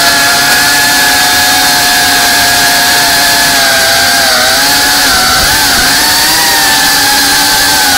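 Brushless motors and ducted propellers of a GEPRC CineLog35 FPV cinewhoop drone in flight, recorded on board: a loud, steady whine whose pitch dips and wavers a few times in the second half as the throttle changes.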